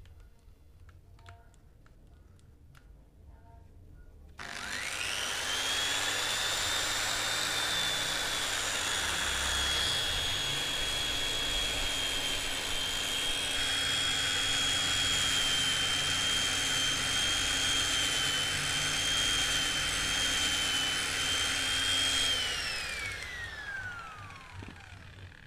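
Electric angle grinder with a non-woven abrasive pad switched on about four seconds in, its whine rising as it spins up, then running steadily while polishing a brass candle holder, with a rougher hiss joining about halfway. Near the end it is switched off and winds down with a falling whine.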